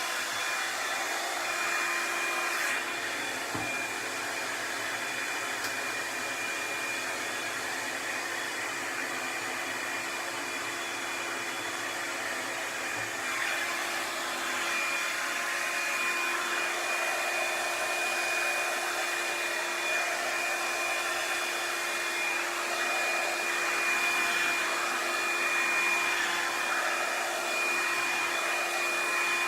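Revlon One-Step hair dryer and styler (hot-air paddle brush) running steadily on its low setting, pretty loud: a constant rush of air with a steady high whine, swelling slightly as it is drawn through the hair.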